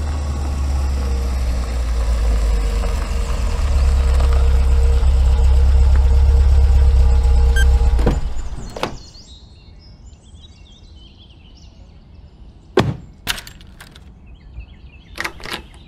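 A low rumbling cinematic swell with held tones builds and cuts off abruptly about halfway through. After a quiet stretch, a key is worked in a door lock near the end, giving several sharp clicks.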